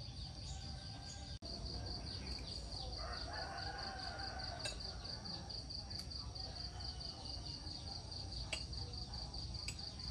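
Insects chirping in a steady, rapid high pulse throughout, with a rooster crowing about three seconds in and a few sharp clicks.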